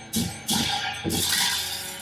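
Tibetan monastic ritual music: large hand cymbals crashed together with a drum beat, about two strokes a second in a steady rhythm, each crash ringing on briefly, over a faint held low tone.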